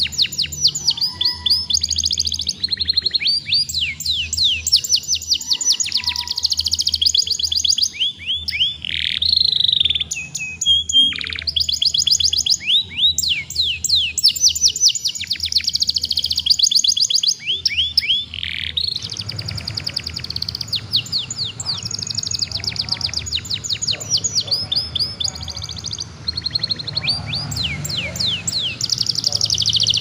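A young domestic canary sings in full, continuous song: long rolls of rapid repeated notes that each drop in pitch, with brief pauses between phrases.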